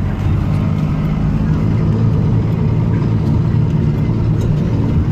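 Pickup truck engine running steadily while driving on the road, with tyre and road noise.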